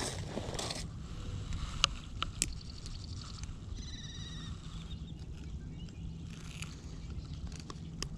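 Scattered clicks and light scraping of handling while pliers are used to unhook a bass, over a steady low rumble. A short high chirp comes about four seconds in.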